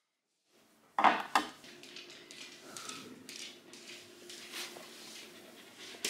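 Frozen yogurt cubes being worked out of an ice cube tray. After a second of silence come two sharp cracks about a second in, then a run of smaller clicks and knocks.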